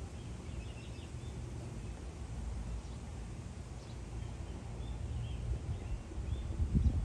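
Outdoor ambience: a steady low rumble with short, faint bird chirps, and a few low thumps near the end.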